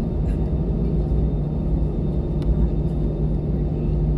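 Airliner cabin noise inside an Airbus A320: a steady, low rumble of the jet engines and airflow with a constant hum through it.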